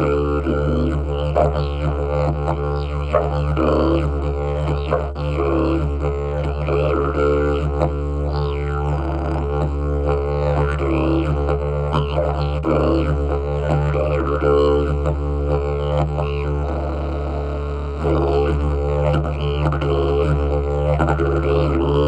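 Long didgeridoo played continuously: a steady low drone with shifting overtones, pulsing in a loose rhythm.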